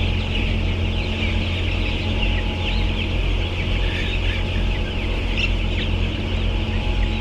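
A large flock of chickens clucking and calling all at once, a dense chatter of many short overlapping calls, over a steady low hum.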